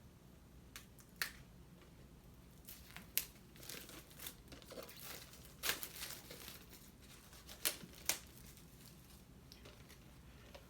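Plastic shrink-wrap being torn and crinkled off a Blu-ray steelbook case, heard as scattered crackles and sharp clicks.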